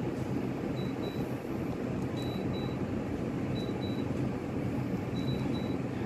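Split air conditioner's indoor unit beeping to acknowledge remote commands: four short high double beeps, about one every second and a half. Each beep is a button press received as the set temperature steps up, showing the remote is working again.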